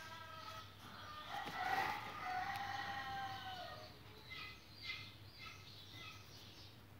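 A rooster crowing once, a long call starting about a second in, followed by a few short bird calls.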